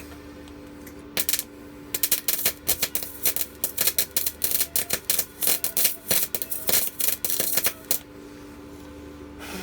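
Electric welder arc crackling and spitting as a weld is laid: one short burst about a second in, then about six seconds of stop-start crackling. A steady hum runs underneath.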